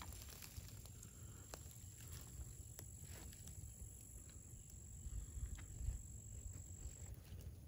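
Faint outdoor ambience: low wind rumble on the microphone and a few soft ticks of camera handling, with a faint, thin, high steady whine that stops near the end.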